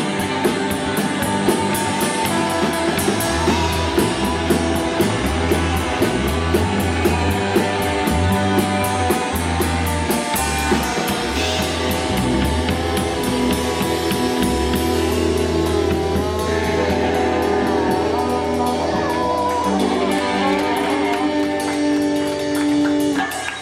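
Live rock band playing an instrumental passage on electric guitar, bass and drum kit. Partway through, the busy drumming gives way to held chords, and the music cuts off sharply right at the end as the song finishes.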